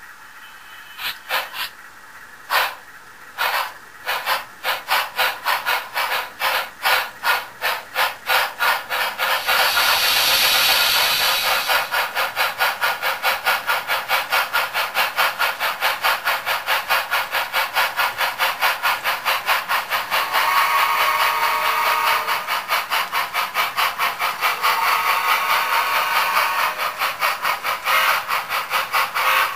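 Sound-equipped HO-scale models of Boston & Maine K8-class 2-8-0 steam locomotives starting a freight train: a few slow, separate exhaust chuffs that quicken into fast, steady chuffing, with a burst of steam hiss about ten seconds in.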